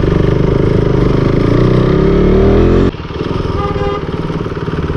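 KTM RC390's single-cylinder engine revving up, its pitch rising for about two seconds, then dropping suddenly to a lower, steady engine beat just under three seconds in.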